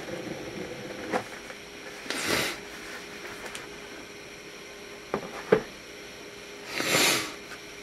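A cardboard presentation box being handled as its lid is lifted off and set aside: soft rubbing swishes about two seconds in and again near the end, with a few light taps and clicks in between.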